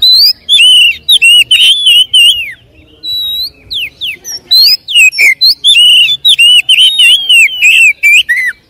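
Oriental magpie-robin (kacer) in full song: loud, rapid, varied whistles and chattering notes, in two long bursts with a short pause of scattered notes between them.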